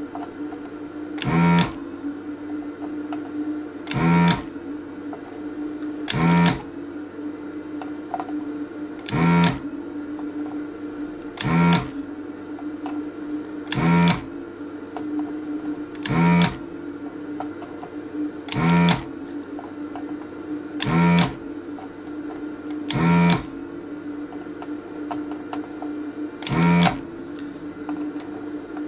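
Thru-hole desoldering station (Duratool ZD-915) running with a steady hum, broken about every two and a half seconds by a short, loud burst of its vacuum pump as the desoldering gun sucks solder from the joints, about a dozen times in all.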